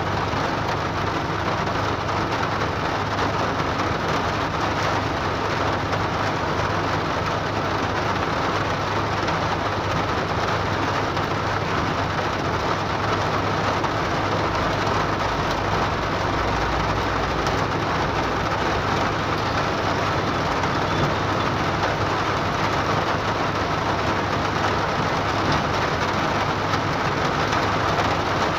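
Hard rain pelting a car's roof and windshield, heard from inside the car as a steady, even hiss with a low steady hum underneath.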